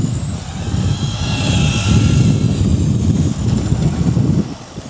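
Wind buffeting the microphone, a loud, irregular low rumble that drops away near the end, with the faint high whine of radio-controlled model buggies' motors briefly over it in the middle.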